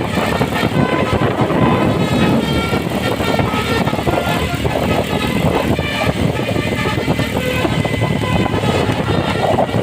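Bus basuri musical horn playing a tune in short changing notes over loud, continuous engine and traffic noise.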